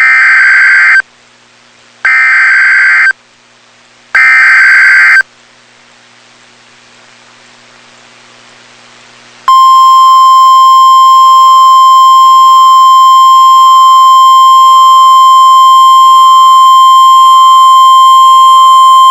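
Emergency Alert System warning tones for a tornado warning. First come three one-second bursts of the digital SAME header, a warbling data squeal, about a second apart. After a pause of a few seconds, the steady single-pitch National Weather Service attention tone (1050 Hz) sounds for about ten seconds and then cuts off.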